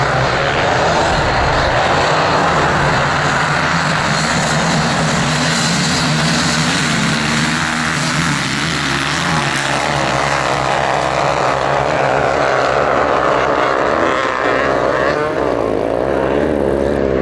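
Several motocross bikes running hard together at high revs as they climb a dirt slope, a dense, steady engine noise with pitch wavering near the end as they shift and ease off.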